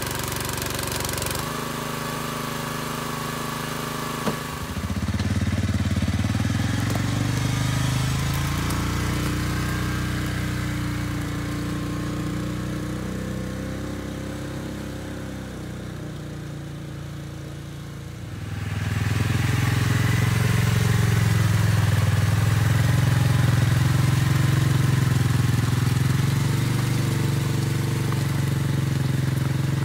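A small engine, the Split-Fire 2265 log splitter's Honda engine, runs steadily for the first few seconds. Then the Polaris Ranger 570 utility vehicle's engine takes over, driving off while towing the splitter. It fades slowly as it moves away, then is loud and steady again for the last third as the Ranger drives through the mud.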